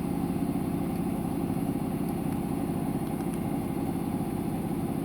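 A motor or engine running steadily, with a fast low pulsing.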